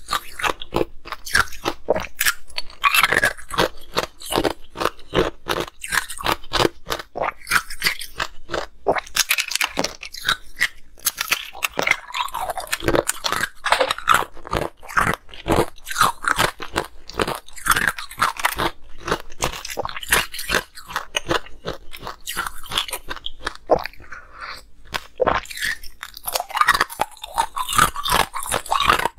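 Hard ice being bitten and chewed close to the microphones: crisp cracking and crunching, several sharp cracks a second, going on steadily as the ice breaks up between the teeth.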